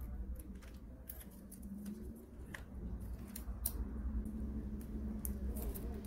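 Fingers handling and peeling a strip of double-sided tape on a laptop keyboard's plastic backing, giving scattered faint clicks and crinkles over a low steady hum.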